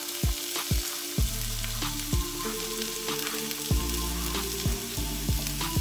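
Chopped onion and green onion sizzling steadily in hot olive oil in a stainless frying pan as they are scraped in with a wooden spoon, over background music.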